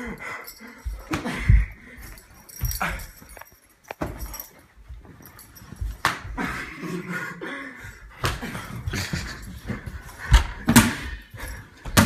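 Scuffling and irregular thumps of people wrestling and bumping into things, with wordless vocal noises in between.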